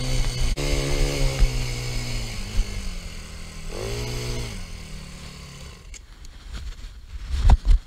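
Chinese 180cc single-cylinder quad bike engine running at low speed, winding down with a brief throttle blip about four seconds in, then falling away about six seconds in. Low wind buffeting on the microphone follows.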